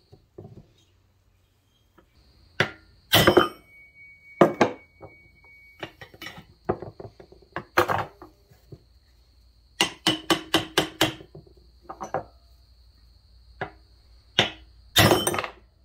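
Hammer striking steel tools on a Peerless 206 transaxle: first a pickle fork wedged between the case and the input pulley, then a steel rod set on the pulley's centre, to drive the stuck pulley off its shaft. The blows are metal on metal and irregular, mostly single, with a quick run of about eight in the middle, the loudest about three seconds in and near the end.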